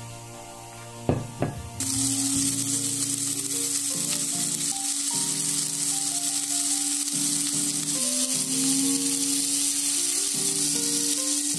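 Electric spice grinder grinding whole spices: two clicks, then the motor switches on about two seconds in and runs as a steady loud whirring hiss.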